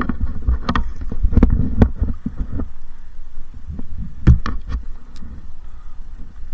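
Low rumble with irregular sharp knocks and clicks, the loudest knock about four seconds in.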